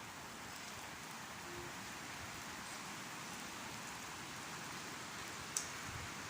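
Steady hiss of falling precipitation during a convective winter snowstorm, with one sharp tick about five and a half seconds in.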